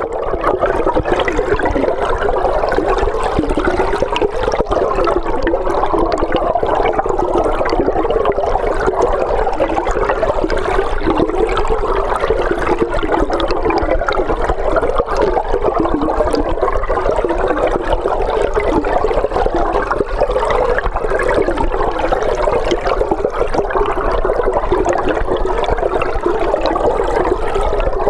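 River water flowing, heard underwater through a hydrophone: a steady, dense rush that holds level throughout.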